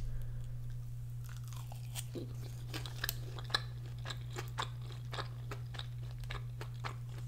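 Chewing a mouthful of loaded fries topped with chicken, cheese and green onion: a steady run of small, irregular mouth clicks, over a steady low hum.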